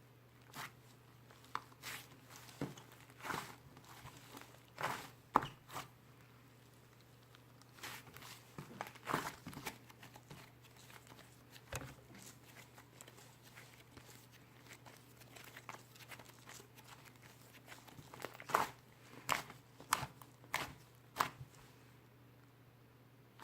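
Irregular short rustles and crinkles, coming in scattered clusters, over a faint steady low hum.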